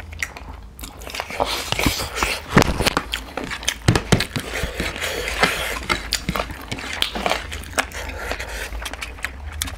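Close-up mouth sounds of two people eating snail and pork curry by hand: chewing, lip-smacking and slurping. Many sharp, irregular clicks and smacks come in quick succession, with heavy breathing between them.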